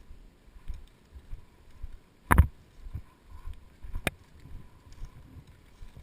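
Footsteps of a player moving, with a loud sharp crack about two seconds in and a thinner sharp click about two seconds later.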